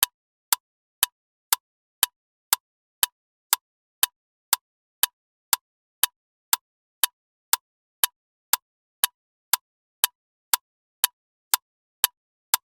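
Loud clock ticking, two sharp, evenly spaced ticks a second with silence between them.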